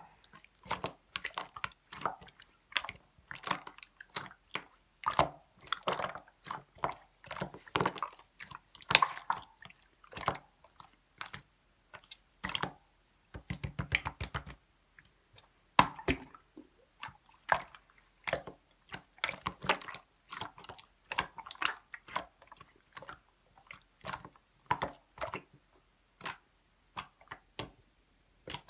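Clear slime being squished and worked by hand, giving wet, sticky clicks and pops at an irregular pace. About halfway through there is a short run of rapid crackling.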